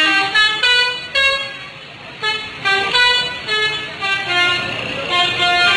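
Indonesian bus 'telolet' horn, a multi-tone musical air horn, playing a quick tune of short notes that jump up and down in pitch, with a brief pause about two seconds in before the tune resumes.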